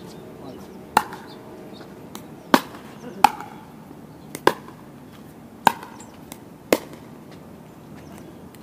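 Pickleball rally: a hard plastic pickleball popping off solid paddles and bouncing on the hard court. There are about seven sharp knocks, roughly a second apart, and they stop about two-thirds of the way through.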